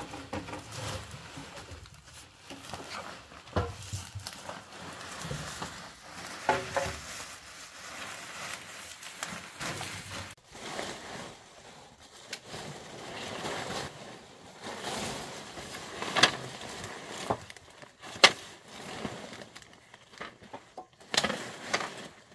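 Irregular knocks and clatter, a few seconds apart, over a rustling, scraping noise.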